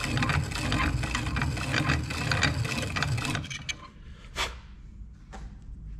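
A Zetec piston ring's end being filed to open up its ring gap, which measured slightly tight: a continuous scraping that stops about three and a half seconds in, followed by a few light clicks.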